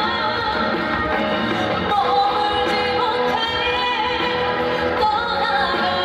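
Female singer singing a Korean trot medley live into a microphone over continuous upbeat backing music.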